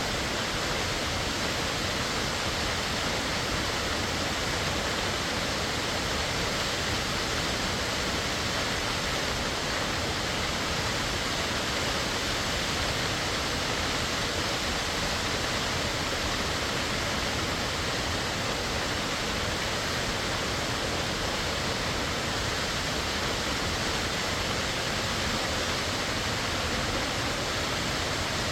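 Warm Springs Falls pouring steadily: an unbroken, even rush of falling water.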